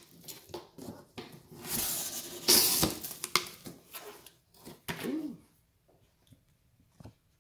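Corrugated cardboard shipping box being torn open by hand: packing tape ripping and the flaps scraping and flexing in a run of irregular rustles, loudest about two to three seconds in.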